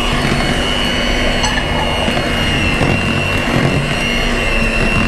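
Electric hand mixer running steadily with a constant high whine, its beaters whisking sponge cake batter in a bowl.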